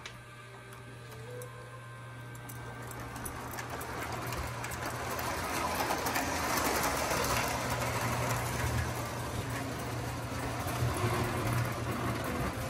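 Lionel model train running on the layout's track, its motor whirring and its wheels clattering, growing louder from about two seconds in as it passes close by. A steady low electrical hum lies underneath.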